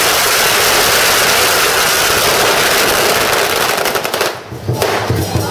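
A pack of firecrackers going off in a dense, rapid crackle of bangs that breaks off about four seconds in.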